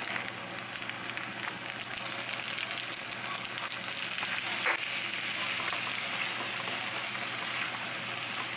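Food sizzling steadily as it fries in a hot pan, with a single knock about halfway through.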